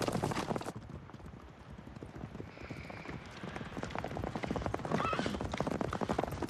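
Hoofbeats of several horses galloping on hard, dusty ground, a rapid clatter of strikes. It grows softer for a couple of seconds about a second in, then louder again.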